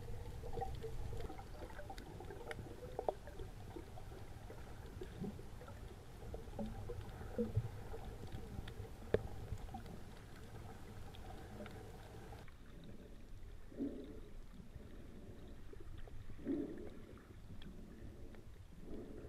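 Underwater sound heard through an action camera's waterproof housing: a muffled low rumble of moving water with scattered clicks and knocks. After a cut about twelve seconds in, three short swells of sound come a couple of seconds apart.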